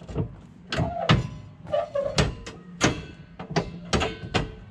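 Fifth-wheel hitch clanking as its locking mechanism is worked by hand: a string of sharp metal knocks at uneven intervals.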